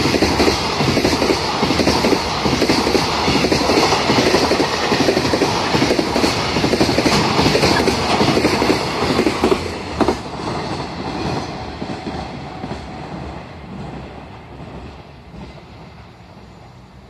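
Container wagons of a freight train rolling past, with the wheels clicking rhythmically over the rail joints. About ten seconds in there is one sharp clack, and the rumble then fades away as the end of the train moves off.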